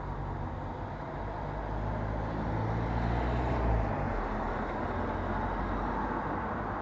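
Street traffic ambience: a steady wash of road noise, with a vehicle's low engine rumble building to its loudest just before four seconds in as it passes, then easing off.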